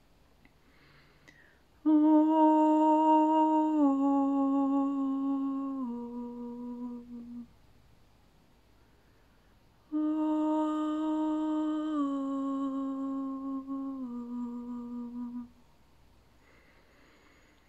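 A woman's voice toning wordlessly in a sound meditation: two long phrases, each of three held notes stepping down in pitch, the first starting about two seconds in and the second about ten seconds in.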